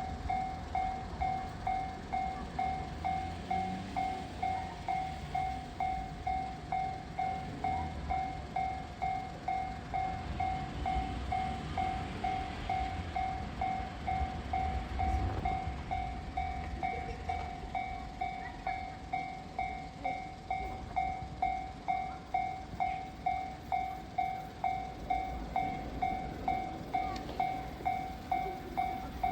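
A railway level-crossing warning bell ringing steadily at about two strikes a second, over the low rumble of a freight train hauled by an EF65 electric locomotive, strongest in the middle.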